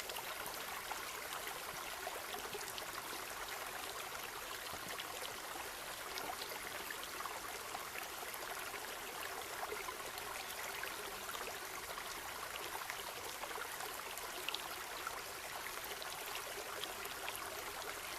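Shallow stream babbling steadily over stones, a continuous even rush with small splashes and trickles scattered through it.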